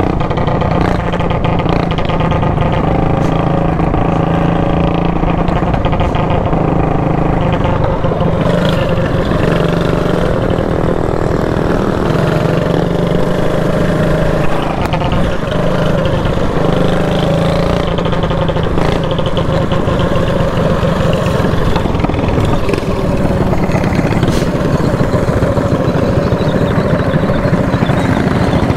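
Mini bike engine running continuously while being ridden, its pitch shifting with the throttle.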